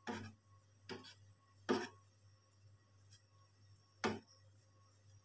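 A cooking utensil knocking against the side of a stainless steel pot during stirring: four sharp knocks at uneven intervals and a faint tap between them, over a faint steady low hum.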